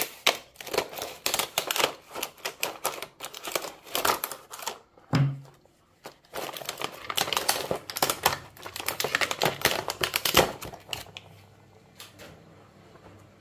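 Hard clear plastic blister packaging clicking and crackling rapidly under fingers. It breaks off for about a second near the middle with a short low thud, then starts again and dies away to faint handling noise near the end.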